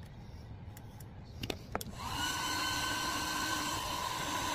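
A few light clicks from handling, then about two seconds in an electric heat gun starts up and runs steadily, its fan giving a whine over a rushing hiss of hot air, as used to soften carbon-fibre vinyl wrap.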